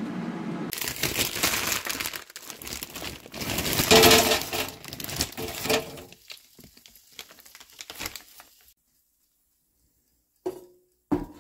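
Plastic bag crinkling as pierogies are poured out of it into an air fryer basket, with knocks as they land. Loudest about four seconds in, then it thins out to scattered clicks.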